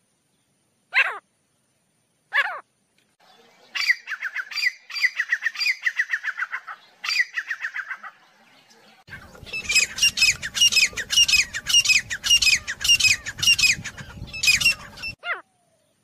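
Grey francolin calling. Two single notes slide downward, then a quick run of repeated notes starts about four seconds in. A louder, higher run of rapid notes follows from about nine seconds in, with a low rumble underneath, and stops about fifteen seconds in.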